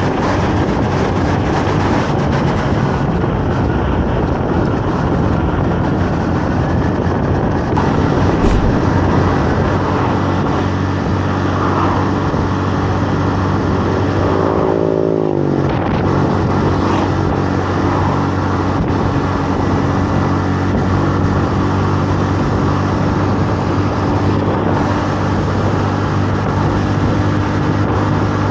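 Honda Navi 110's small single-cylinder engine running on the move, with heavy wind rush on the microphone. About halfway through, the engine pitch falls over about a second, then holds steady.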